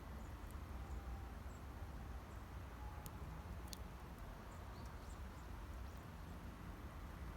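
Campfire of gathered wood burning with a low steady rumble and a few sharp crackling pops, two of them close together about halfway through.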